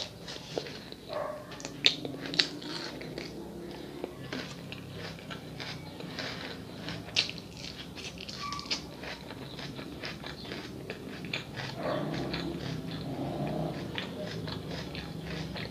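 A person eating close to the microphone: wet mouth clicks, smacks and chewing, first on salad and then on grilled fish picked apart and bitten from the fingers, with many short, sharp clicks.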